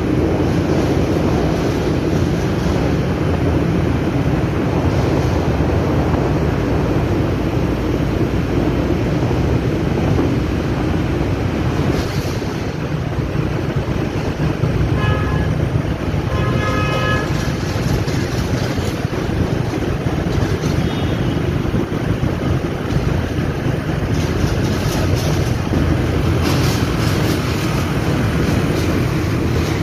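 Steady engine, tyre and wind noise from a motorcycle riding through a road tunnel. A vehicle horn gives a few short toots about halfway through.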